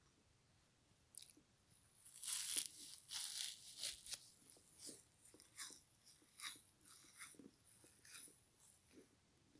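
A frozen foam kitchen sponge with a scouring pad is bitten and chewed. There is a loud crunch about two seconds in, then a run of shorter crunchy chews, roughly one every half second to a second.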